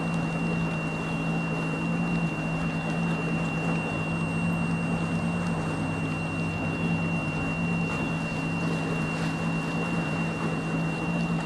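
Outboard motor of a small center-console boat running steadily at low speed, a low even hum, with a thin steady high whine alongside it.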